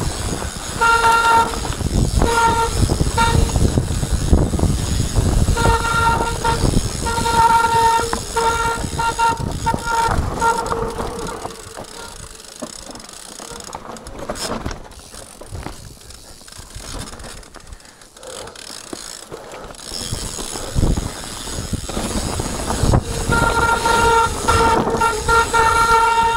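Mountain bike disc brakes honking in a steady, horn-like tone that comes and goes, over the clatter of the bike and tyres on rocky trail. The tone drops out for several seconds in the middle, while the rolling noise goes quieter, and returns near the end.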